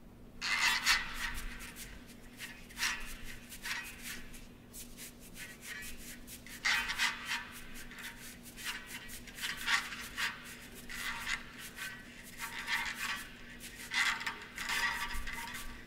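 A string of short rubbing and scraping strokes, irregular, about one or two a second, with a longer stretch near the end. A faint steady low hum runs underneath.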